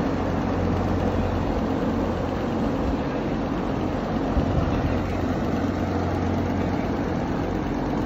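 A bank of large cone-housed exhaust fans on a poultry house running together: a steady rush of moving air over a low, even hum.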